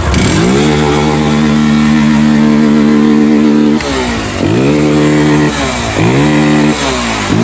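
Motorcycle engine revved hard: the throttle is held wide for about three seconds, then blipped three more times, the revs falling and climbing again each time.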